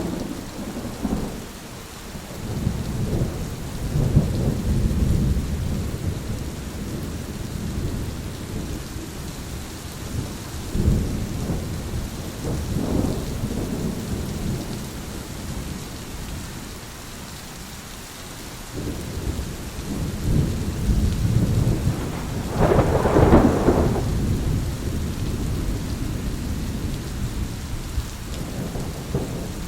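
Thunderstorm: steady rain hissing under repeated rolls of thunder, with the loudest, sharpest peal about three quarters of the way through.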